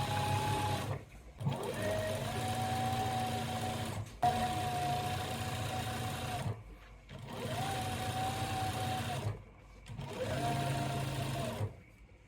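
Electric sewing machine stitching in short runs of about two seconds, the motor speeding up to a steady hum at the start of each run and stopping between them, about five times.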